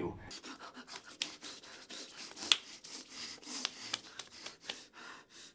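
Scratching and rubbing from a person's hands and clothing, with many scattered light clicks and one sharper click about two and a half seconds in.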